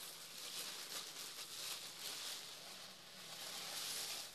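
Thin packing paper rustling and crinkling as it is handled and pulled open by hand.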